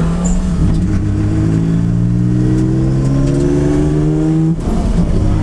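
Single-turbo Dodge Stealth race car's 3.0-litre V6 heard from inside the cabin, pulling hard with its pitch climbing steadily for about three and a half seconds. About four and a half seconds in the note breaks off briefly, then carries on at a steady pitch.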